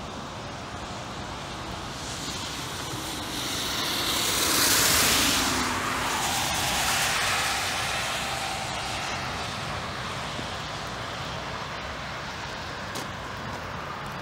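A vehicle passing on a wet road: a tyre hiss swells to a peak about five seconds in, then slowly fades away, over a steady background hiss.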